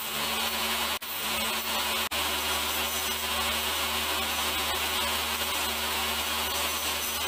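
DeWalt DW7492 table saw running steadily, its spinning blade trimming the edge of a pallet-wood disc as the disc is turned on a circle-cutting jig. The sound cuts out briefly twice in the first two seconds.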